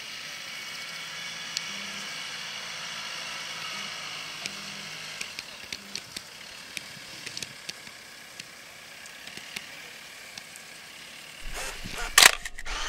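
Jeep Wrangler driving slowly through tall dry grass: a faint engine hum under a steady hiss, with scattered light crackles. Near the end, a few loud bumps with a low hum break in.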